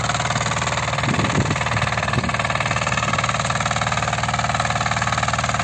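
Motor Sich walk-behind tractor (motoblock) engine running steadily as it pulls a harrow through ploughed soil.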